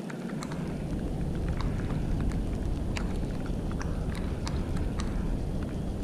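Wind buffeting the microphone as a steady low rumble that picks up just after the start, with scattered light ticks and rustles over it.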